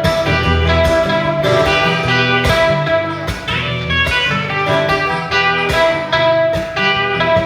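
Live band music with guitars playing an instrumental passage of the song, no singing.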